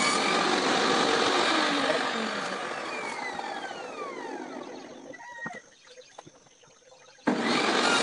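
An electric woodworking power tool runs, is switched off and winds down with falling whines, leaving a few small clicks. It then starts up again suddenly, loud, a little after seven seconds in.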